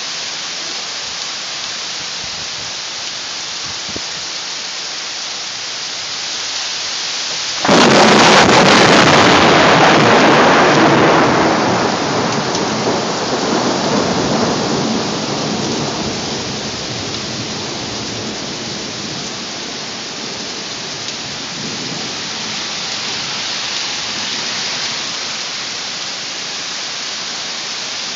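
Heavy rain pouring steadily. About eight seconds in, a very close lightning strike sets off a sudden, loud thunderclap that rumbles on and fades away over the next ten seconds or so.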